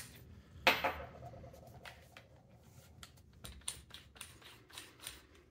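Small irregular clicks and taps of a drill bit being changed by hand in a cordless drill's chuck, after a single sharp metallic clink with a short ring about half a second in.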